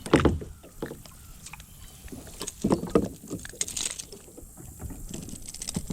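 Irregular knocks and clatter on a kayak while a hooked bass is fought and brought alongside, the sharpest knock right at the start and a cluster near the middle.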